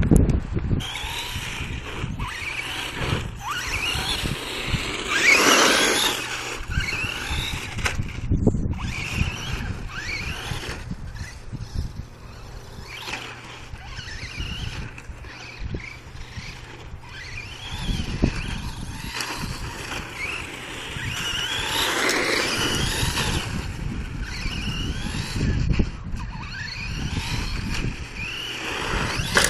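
Traxxas Stampede 4x4 RC monster truck's electric motor whining. It rises in pitch each time the truck accelerates and falls away in repeated runs, loudest about five seconds in and again a little past twenty seconds.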